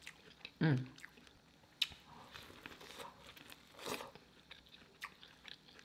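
Close-miked eating of corn on the cob: kernels crunching and popping as they are bitten off the cob, with wet chewing clicks. There is a short falling "mmm" hum under a second in and a louder bite about four seconds in.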